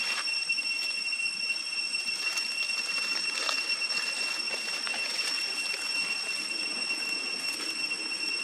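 Steady high-pitched drone of insects, with faint scattered clicks and rustles.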